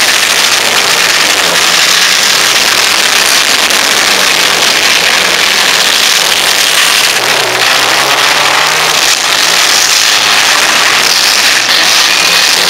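Several four-cylinder compact demolition derby cars' engines running and revving together, a loud, steady din.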